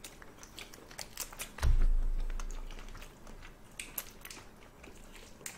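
Light clicks and crackles of cooked red shrimp shells being pulled apart by hand, with one dull thump about a second and a half in whose deep rumble fades away over the next second or so.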